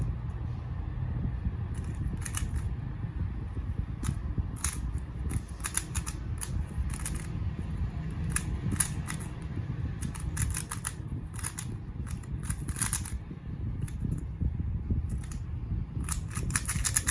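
A MoYu RS3M 2020 magnetic 3x3 speedcube being turned quickly in a solve: irregular bursts of fast plastic clicks as the layers snap round, with a dense flurry near the end. A steady low hum runs underneath.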